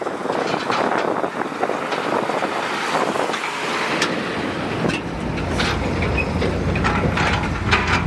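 Heavy construction machinery at work: a diesel engine running amid clattering and knocking of dirt and stones, the low engine rumble growing stronger about five seconds in.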